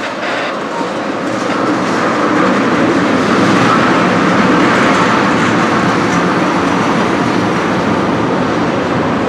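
Freight cars of a CSX train rolling past on the rails, a steady noise of wheels on track as tank cars give way to empty open-top cars, swelling slightly in the middle.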